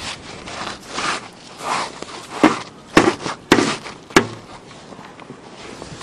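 Footsteps crunching through deep snow, about one step every 0.6 seconds, with three sharp knocks among the last steps. The steps stop about four and a half seconds in.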